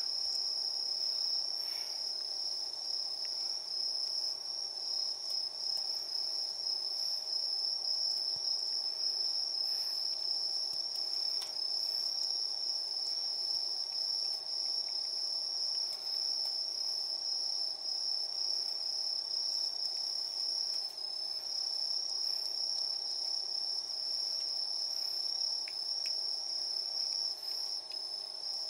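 Crickets chirping in a continuous high-pitched trill, with a faint steady background hum underneath.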